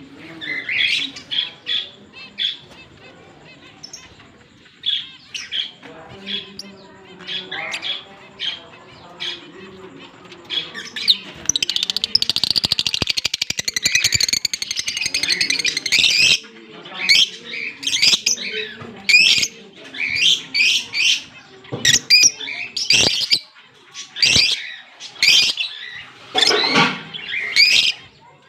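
A pair of Fischer's lovebirds chirping, with many short, high chirps throughout and a stretch of dense, rapid chatter about halfway through.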